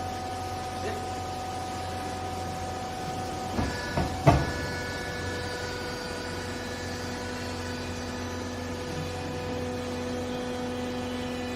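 Textile baler press running: a steady machine hum with several fixed tones, broken about four seconds in by a few sharp clanks, the last the loudest.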